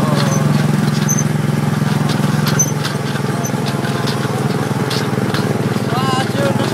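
Small gasoline engine of a go-kart-style amusement-park ride car running steadily under throttle, a low steady drone heard from the seat, with light rattles from the car. A short voice is heard near the end.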